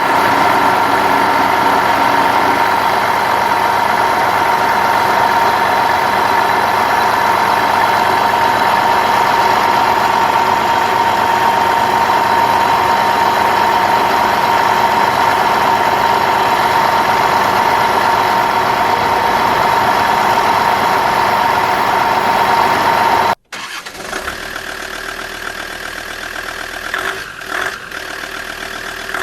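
Radio-controlled construction machine's motor running steadily, with a constant whine. Near the end it cuts off abruptly and gives way to a quieter engine sound with a rattle.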